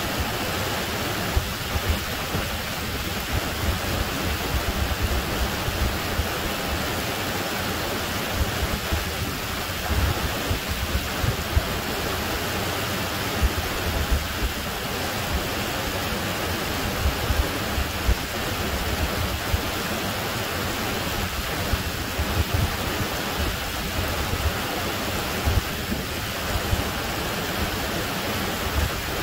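Small waterfall rushing down a rocky creek cascade: a steady, even rush of water, with irregular low thumps now and then.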